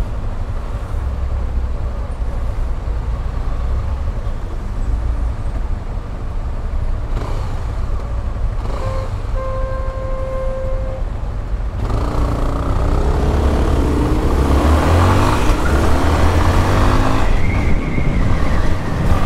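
Yamaha Lander 250 motorcycle's single-cylinder engine running under way, with wind rushing past. A horn sounds for about two seconds near the middle. Then the engine pulls harder, its pitch rising several times as the bike accelerates, and the wind grows louder.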